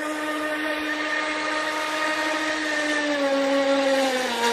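Feilun FT011 RC speedboat's brushless electric motor running at speed, a steady high-pitched whine over the hiss of the hull and spray. The whine steps down slightly in pitch twice in the last second and a half.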